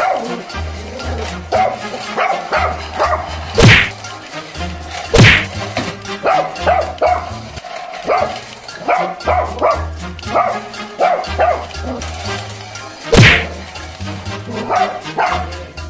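A small dog barking repeatedly in short, sharp barks over background music with a thumping bass beat.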